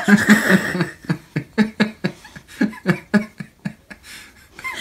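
A long run of short, rhythmic laughs, about three to four a second, that thin out near the end.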